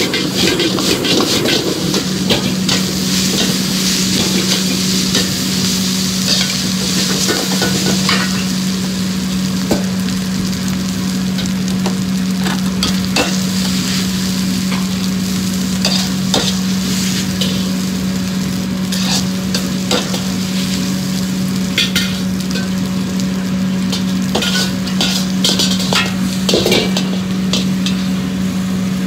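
Fried rice sizzling as it is stir-fried in a wok over a gas burner, a metal ladle scraping and clacking against the wok many times, over a steady low hum.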